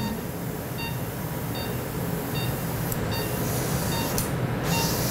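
Operating-room patient monitor giving a short high beep about every 0.8 s, six times, in time with the pulse. Under it runs a steady hiss that grows louder in the second half.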